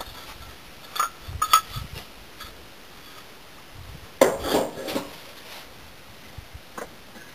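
Kiln firebricks knocking and clinking against each other as they are handled and stacked: a couple of sharp clinks about a second in, then a longer clatter of brick on brick about four seconds in, with a few lighter ticks near the end.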